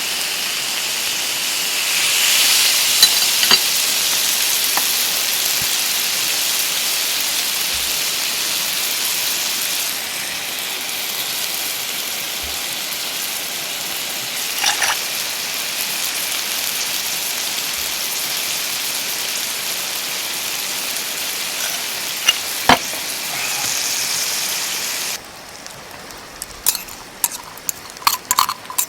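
Steak sizzling on a hot iron griddle plate over a campfire: a steady frying hiss with a few sharp ticks and taps. The sizzle cuts off suddenly near the end, and a few light clinks follow.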